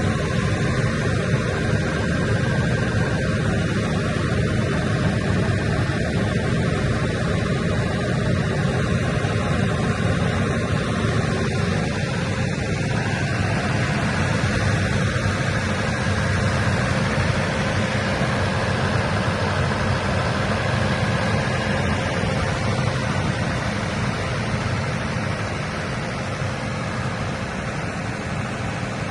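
Diesel engine of a 90 kVA Perkins generator set running at a steady speed, a constant, dense engine noise that eases slightly near the end.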